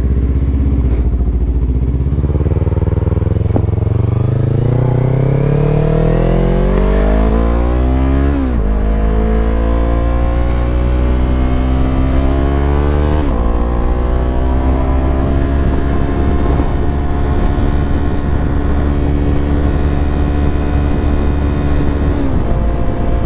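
Yamaha YZF-R3's parallel-twin engine accelerating through the gears. The revs climb, drop sharply at two upshifts, then rise more slowly and hold steady at cruising speed, with a dip near the end.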